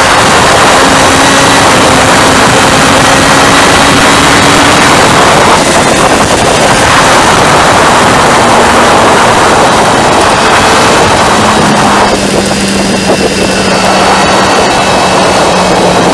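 Loud wind rush over a motorcycle-mounted camera at road speed, with the motorcycle's engine running steadily underneath; the engine note drops slightly about two-thirds of the way through.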